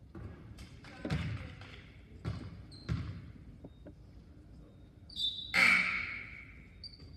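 Basketball bouncing on a hardwood gym floor three times in the first three seconds as a player dribbles before a free throw. About five and a half seconds in comes a louder, sharp sound that rings on in the gym.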